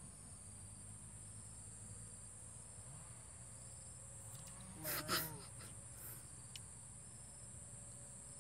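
Faint, steady high-pitched chirring of crickets or similar insects, with a low hum underneath. About halfway through, a short, louder voice-like sound breaks in for half a second.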